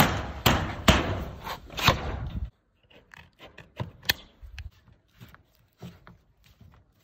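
Several sharp knocks on a standing seam metal roof panel as it is struck by hand onto the eave edge, ending abruptly about two and a half seconds in. After that come quieter crisp clicks of aviation tin snips cutting and bending the end of the seam.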